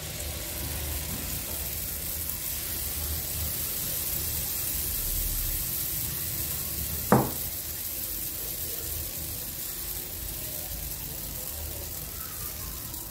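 Waffle batter sizzling on the hot plates of an electric waffle maker as it is poured and spread, a steady hiss. There is a single sharp knock about seven seconds in.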